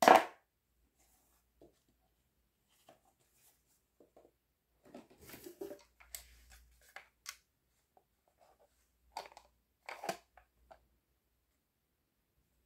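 A sharp plastic clack as a miniature plastic toy fridge falls onto the tabletop, followed by scattered light taps, clicks and handling of small plastic toys, with a few sharper clicks about nine to ten seconds in.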